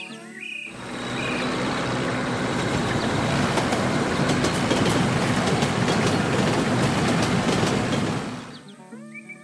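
A loud rumbling rush of noise with scattered rattling clicks, typical of a heavy vehicle passing. It swells in under a second in, holds steady, and fades out near the end, taking the place of the background music.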